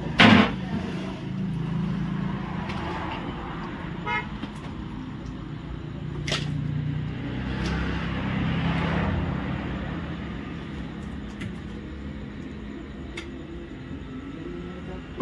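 An engine running steadily, with a loud sharp knock just after the start and another short sharp sound about six seconds in.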